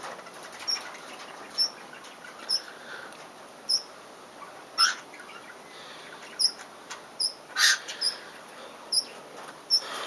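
Cockatiel chirping: short high chirps repeated about once a second, with two louder, harsher sounds about five and eight seconds in.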